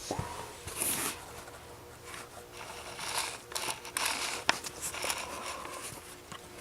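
Handling noise: irregular scraping and rustling with scattered clicks, one sharp click about four and a half seconds in.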